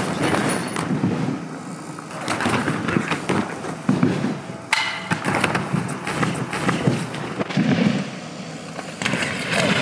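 Mountain bike rolling and rattling over a gravel run-in toward a jump onto an inflatable airbag, with a string of irregular knocks and thuds and a louder stretch near the end.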